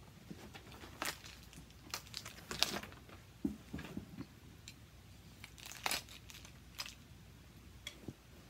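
Packaging crinkling and rustling, with scattered clicks and knocks as a tripod stand is handled and set up. The loudest rustle comes about two and a half seconds in.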